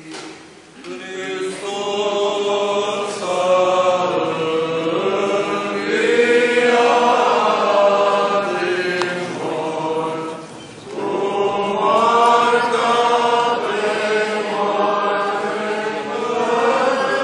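A group of voices singing Romanian Orthodox church chant in long, sustained phrases, with a short break between phrases about ten seconds in.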